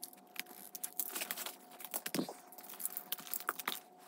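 Plastic magnetic building tiles clicking and clattering as they are handled and snapped onto a tile structure, a scatter of small irregular clicks.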